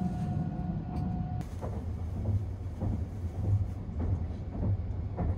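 Low steady rumble inside a Sunrise Izumo sleeper-train carriage, with a faint steady whine for about the first second and a half. A few light knocks follow.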